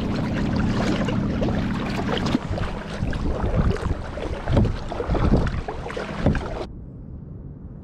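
Kayak paddle strokes, the blades dipping and pulling through the water in a run of splashes about a second apart, over a rush of wind and water. Near the end the sound drops abruptly to a quieter, duller hiss.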